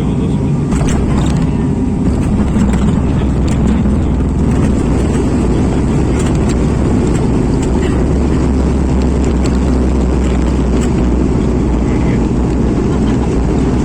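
Airliner cabin noise: the steady low rumble of the engines and airflow heard from inside the passenger cabin during landing, with a few small clicks and rattles over it.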